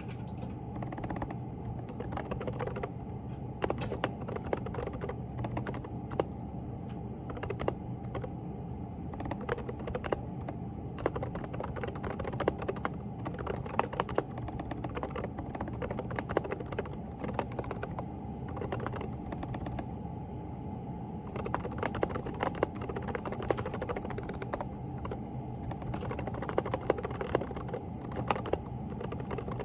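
Steady typing on a Groovestone GV10 mechanical keyboard with hand-lubed silent coral switches (38 g), many soft keystrokes a second, over a steady low hum.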